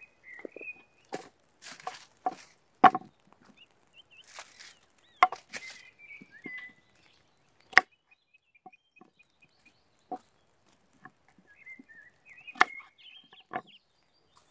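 Carrots being peeled and cut on a wooden cutting board: irregular sharp knocks of the blade against the board, a few short scrapes, with faint bird calls chirping in between.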